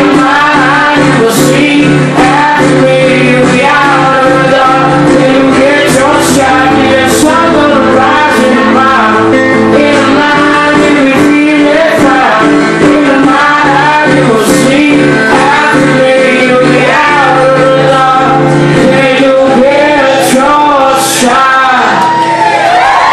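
A man singing with a strummed acoustic guitar, amplified live on stage, holding long sung notes over ringing chords.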